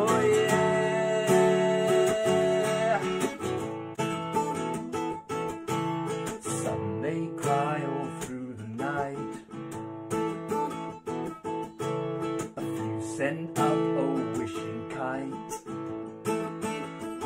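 Acoustic guitar strummed in a steady rhythm, with a man singing over it: a held note at the start, then sung lines now and then.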